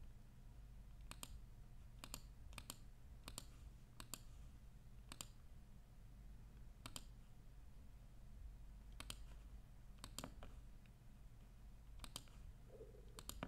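About a dozen faint computer mouse clicks at irregular intervals, some in quick pairs, over a faint low steady hum.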